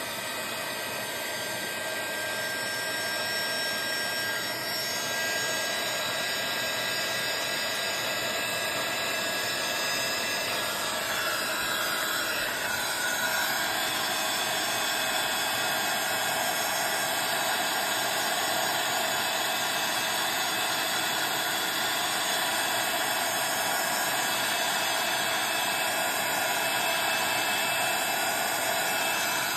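Handheld embossing heat tool blowing steadily, its fan and heater giving a continuous whirring hiss with a faint whine, played over embossing paste and powder to puff the paste up. Its whine shifts slightly about eleven seconds in.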